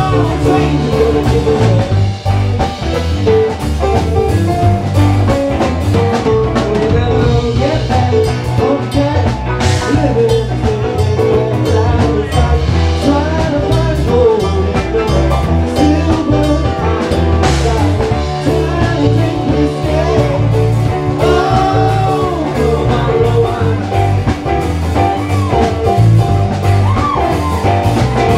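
Live band playing a funk-jazz jam: electric guitar and drum kit keep a steady beat, with melodic guitar lines on top.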